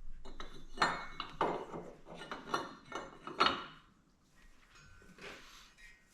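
Steel truss pieces clinking and knocking against a Dana 30 axle housing as they are set in place for a test fit: about seven sharp metal clanks over the first three and a half seconds, then only faint shuffling.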